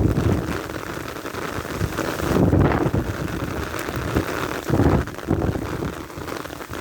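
Heavy rain drumming steadily on an umbrella canopy while strong gusts of wind buffet it. The wind swells into low rumbles about two and a half and five seconds in.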